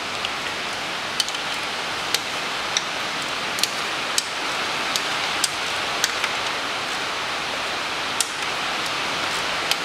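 A heavy downpour: a steady hiss of rain, with scattered sharp ticks over it.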